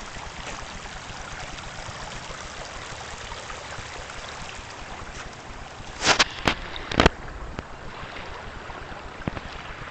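Snowmelt trickling down a small rivulet along a dirt trail, a steady running-water sound. A few sharp knocks about six and seven seconds in.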